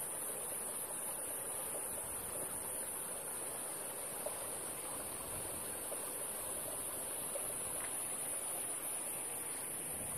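Shallow stream running over rocks: an even, steady wash of water, with a steady high-pitched hiss above it.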